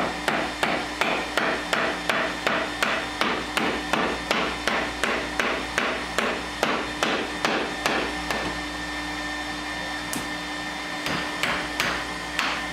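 Hand hammer tapping on a wooden frame-and-panel workpiece, about three sharp blows a second. The blows stop for a couple of seconds near the end, then start again.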